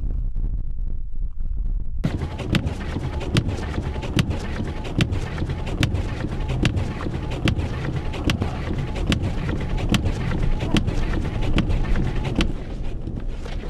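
Wind buffeting the microphone with a heavy low rumble. About two seconds in the sound changes abruptly, and sharp clicks then repeat evenly, a little more than once a second, over the noise.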